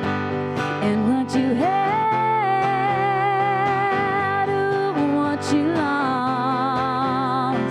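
Female vocal duo singing a song with acoustic guitar accompaniment, holding one long note for about three seconds, then a note with vibrato near the end.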